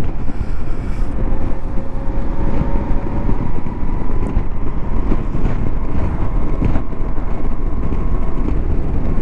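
Moto Guzzi V85TT's V-twin engine running at a steady cruise, heard from the saddle with wind and road noise over the microphone.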